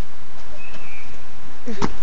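A child dropping from a swing-set frame and landing on bare dirt with a thump near the end, over a steady outdoor hiss. A short bird chirp sounds about halfway through.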